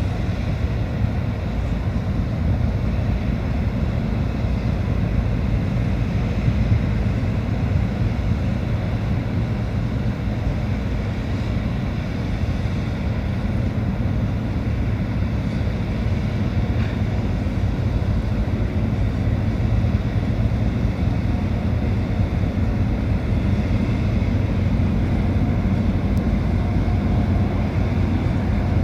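Car ferry's engines running with a steady low drone as it manoeuvres in port.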